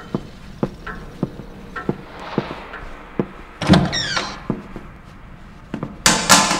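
Footsteps at a steady walking pace, then a door opening with a loud falling squeak about halfway through. Near the end comes a short, loud rush of noise.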